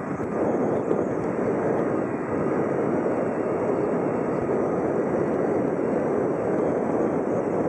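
Airbus A319 jet engines running, heard from across the airfield: a steady rushing noise that grows louder about half a second in and then holds.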